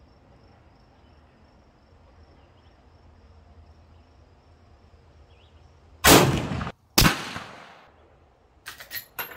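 A lever-action .30-30 rifle fires a full-power factory round about six seconds in, a very loud shot followed about a second later by a second sharp crack that fades away. Near the end come a few short metallic clicks.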